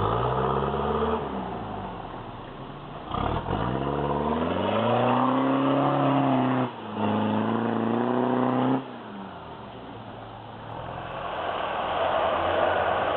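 An off-road vehicle's engine revving hard in repeated surges. The revs climb, hold high for a few seconds and fall back, with a brief dip midway through the longest surge.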